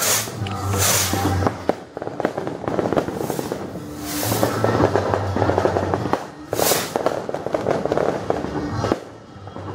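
Fireworks and firecrackers going off in dense, continuous crackling volleys, with a few louder hissing bursts, over music playing in the background.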